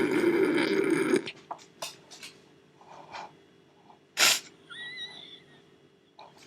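Dry popcorn kernels spilling and scattering across a hard kitchen surface: a dense rattle for about a second, then a few stray kernels clicking. A short rustle about four seconds in is followed by a faint high squeak.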